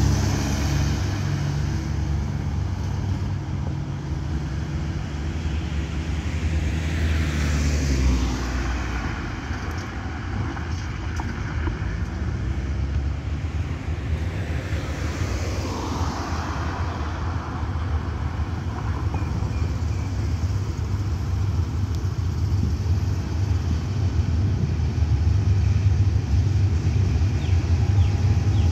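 Road traffic going by: a pickup and cars pass with engine and tyre noise that swells and fades, twice. Toward the end a low rumble grows louder as a diesel locomotive hauling a long passenger train draws near.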